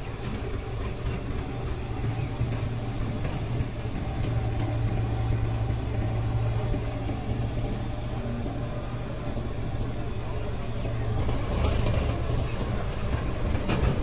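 Diesel tractor engine running with a steady deep drone. In the later part, a Mahindra 475 DI tractor is pulling a loaded trolley close by, with a short louder surge near the end.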